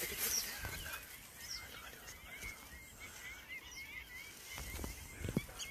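A bird calling in a quick run of short wavering notes, about four or five a second, faint. Near the end there are a few dull knocks.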